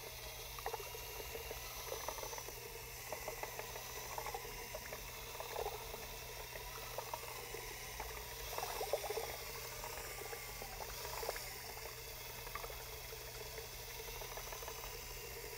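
Cordless drill turning a paddle mixer in a plastic bucket of liquid MMA resin, steadily churning and swishing the pigment into the top coat.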